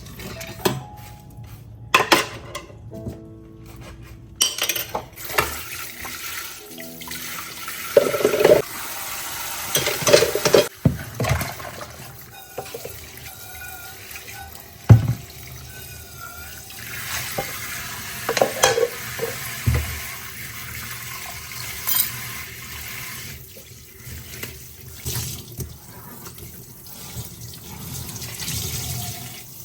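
Kitchen tap running into a sink while dishes are washed, with clinks, knocks and clatters of dishes and utensils over the running water.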